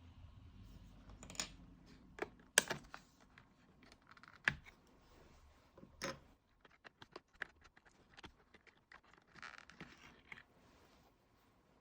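Hands working on a white polycarbonate MacBook: irregular clicks, taps and light scrapes of plastic and small tools, with a quick run of small ticks in the middle.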